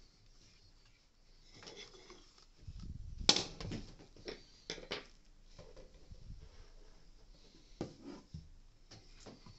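Handling noises from a plastic Dyson soft roller cleaner head being picked up, turned and set down on a wooden table: scattered light clicks and knocks, with a short low rumble and the loudest knock about three seconds in.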